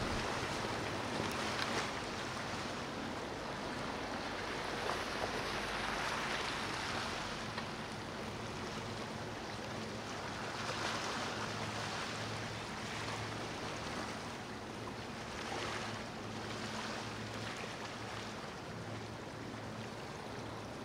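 Gentle ocean surf washing ashore in slow swells every few seconds, with a faint low hum underneath.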